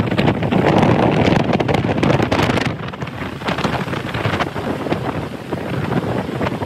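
Wind buffeting the microphone through an open car window as the car drives along, gusting hardest in the first two to three seconds.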